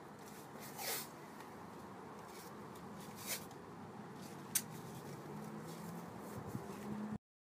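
Faint short rasps of masking tape being pulled off the roll and torn, three of them about one, three and four and a half seconds in, over a low steady background.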